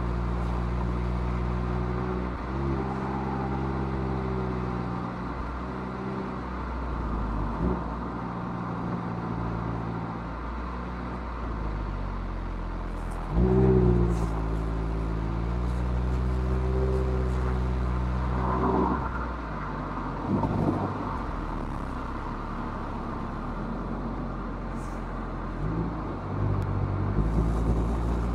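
Mazda MX-5's four-cylinder engine heard through its stock exhaust, pulling uphill. The engine note steps up and down with throttle and gear changes. It gets suddenly louder and higher about thirteen seconds in, and the revs climb again near the end.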